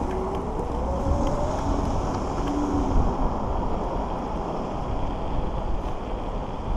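Wind buffeting the microphone and road rumble while riding an electric scooter, steady throughout, with a faint whine rising in pitch over the first two seconds.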